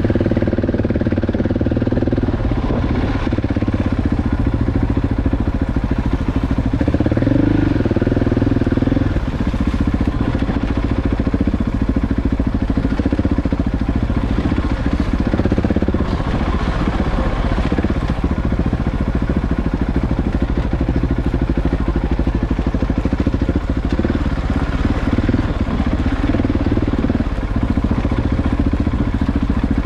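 KTM 690 Enduro R's single-cylinder engine running as the bike is ridden off-road at low revs, the engine note rising and falling a couple of times with the throttle.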